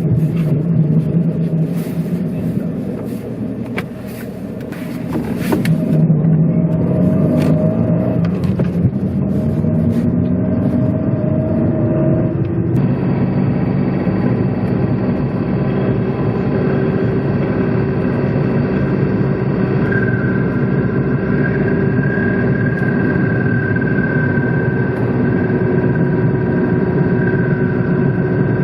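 Second-generation Fiat Panda 4x4 driving, with a few knocks in the first seconds, its drivetrain note rising as it accelerates, then holding steady at speed with a thin steady whine over the running noise. The car is making abnormal noises that the mechanic suspects come from the propeller shaft's centre bearing.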